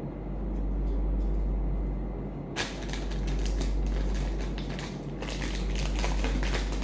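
Packaging crinkling and rustling as items are handled, a dense crackle that starts about two and a half seconds in, over a low steady rumble.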